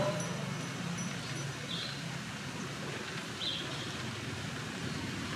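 Outdoor street background noise, with a vehicle moving off at the very start and a short high chirp repeating about every two seconds.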